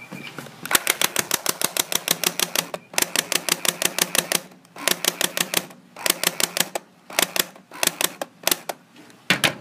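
Clear-bodied electric airsoft rifle firing on full auto in several bursts: a rapid rattle of about ten shots a second, broken by short pauses.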